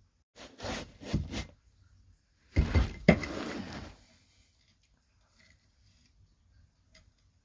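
Metal parts of a torsion bar and its splined end being worked by hand to re-index it: two short scrapes, then a louder clatter with a sharp metal knock about three seconds in, followed by a few faint ticks.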